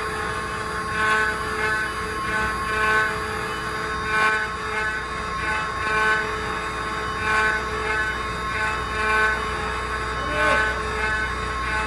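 Eight-head 4th-axis CNC wood router carving wooden columns: the spindles whine steadily on several fixed pitches, and the cutting noise swells and eases about once a second.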